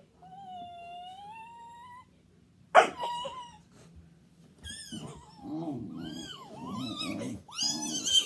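Dog whining: one long whine rising in pitch, a single sharp bark about three seconds in, then a run of shorter high-pitched whines and yips.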